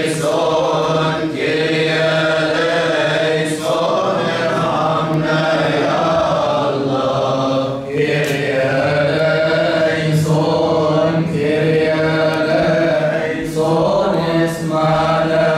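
Coptic Orthodox liturgical chant: voices holding long, drawn-out notes, with short breaks every few seconds.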